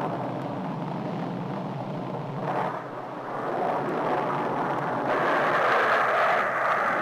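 Grumman F11F Tiger jet fighters flying past, with a continuous rushing jet noise. The noise grows louder and higher about five seconds in as a jet comes closer.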